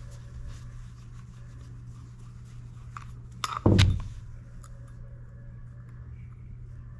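Small clicks of a screwdriver and metal parts as a Suzuki Bandit 1200 vacuum fuel petcock is taken apart by hand, over a steady low hum. A short thump comes a little past three and a half seconds in.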